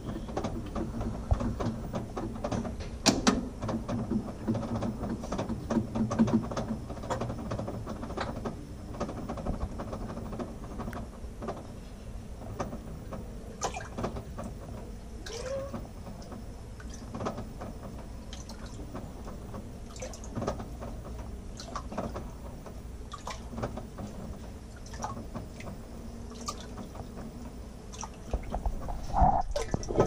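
Water running into the drum of an LG 18 kg top-load washing machine as it fills, heard from inside the drum, with scattered small clicks and drips. Just before the end it gets much louder as the water starts churning.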